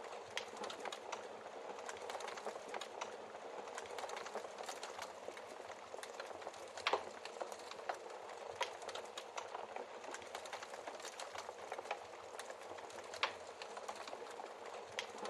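Wood fire crackling, a steady hiss with many small snaps and a few louder pops, one about seven seconds in and another near the end.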